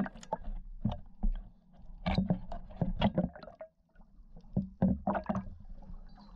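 Water splashing and bubbling around a waterproof action camera in the water, in short irregular bursts.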